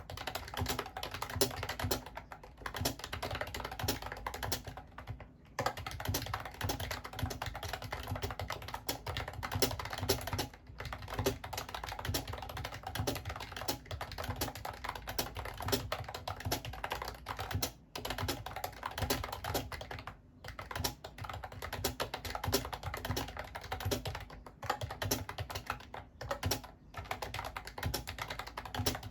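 Continuous fast typing on a Mofii Candy wireless keyboard: a dense run of keystroke clicks, broken by a few short pauses.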